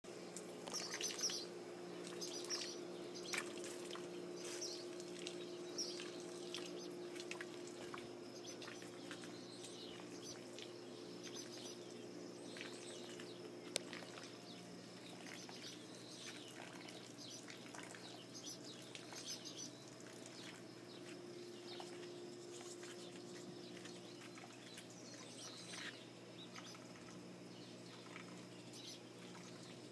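Faint small birds chirping on and off over a steady low mechanical hum, with a single sharp click about fourteen seconds in.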